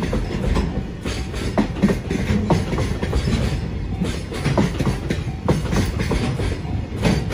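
Freight train of container wagons passing: a steady low rumble with irregular clacks of the wagon wheels over the rail joints.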